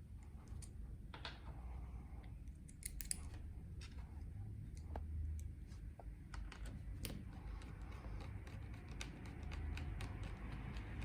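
Irregular light clicks and taps, a few to several a second, over a low steady hum.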